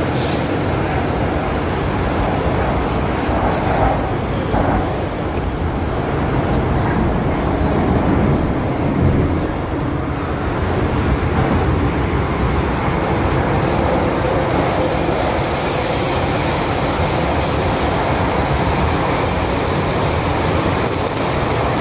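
A 1979-built first-generation MTR M-Train (CM Stock) running on the metro line with a steady rumble of wheels and traction equipment. About two-thirds of the way through, a brighter hiss joins it.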